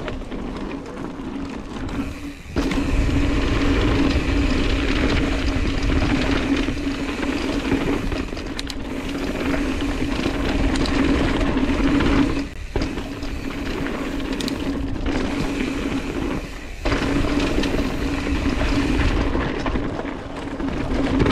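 Mountain bike's rear freehub ratcheting in a steady buzz while coasting on a dirt trail, over the rumble of tyres and wind on the handlebar microphone. The buzz cuts out briefly about two and a half seconds in, then twice more later on.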